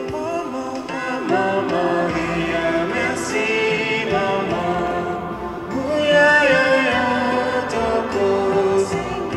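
A hymn is sung, with voices over instrumental accompaniment. It is the closing music at the end of a Catholic mass.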